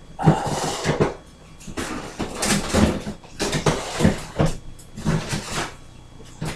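Rummaging: an irregular run of knocks, clatters and rustles as containers and packages are moved about.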